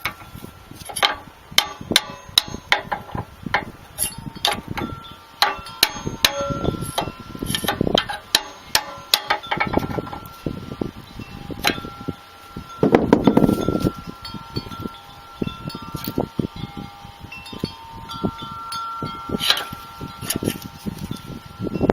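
Irregular metallic clinks and strikes, about two a second, each leaving ringing metal tones that hang on for seconds, with a heavier clattering burst about halfway through.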